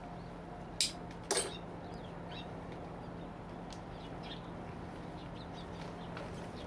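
Hand shears snipping sharply twice, about half a second apart, about a second in. Faint bird chirps come and go throughout.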